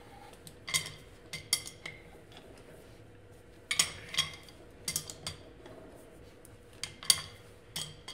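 Large crescent wrench clinking against the nut of a concrete anchor bolt as it is turned and re-seated stroke by stroke, tightening the nut to draw the anchor up and set it in the floor. About ten sharp metallic clinks come at irregular intervals.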